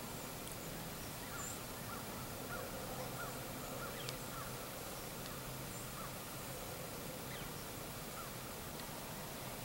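Faint outdoor ambience with a steady hiss and scattered distant bird calls, with one faint click about four seconds in.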